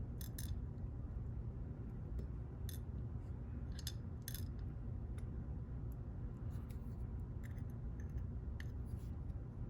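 Small metal lock parts and tweezers clicking and tapping irregularly as the lock is taken apart, over a low steady hum.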